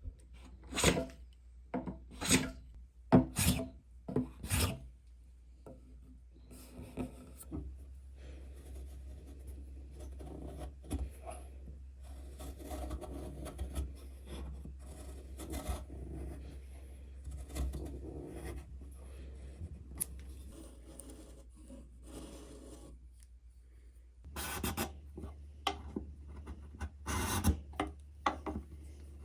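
Hand tools working wood: about six sharp scraping strokes in quick succession, then a longer stretch of quieter, continuous rubbing and scraping on the wood. Sharper strokes return near the end.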